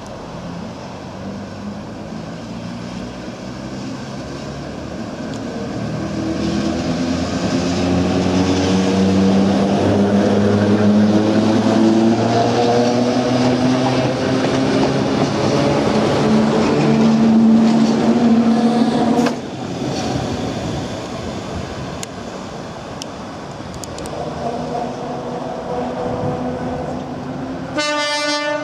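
Heritage Red Set F1 electric train accelerating, its motors whining and rising steadily in pitch as it passes, loud, until the sound drops away suddenly about two-thirds of the way through. A short horn toot near the end.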